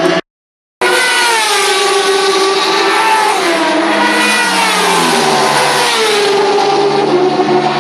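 Racing motorcycle engines running at high revs as bikes pass along the straight, their pitch falling several times as they go by. The sound cuts out completely for about half a second just after the start.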